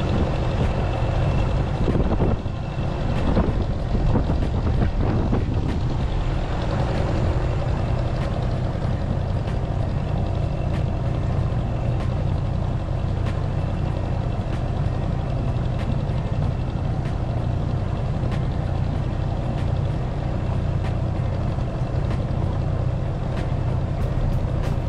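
Small outboard motor of an inflatable dinghy running steadily at cruising speed while towing a second inflatable, with water rushing along the towed boat's hull.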